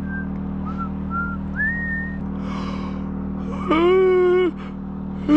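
A man whistling a few short notes, some rising, in the first two seconds, then yawning aloud: a held vocal note around four seconds in, and a falling sigh starting right at the end. A steady low hum runs underneath.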